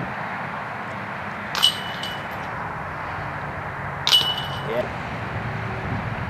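Two metallic clanks with jingling, ringing metal, about two and a half seconds apart: discs striking the chains of a disc golf basket.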